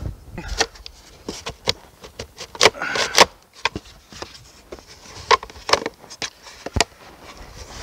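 A scattering of short, sharp clicks and knocks at irregular intervals, the loudest about three seconds in.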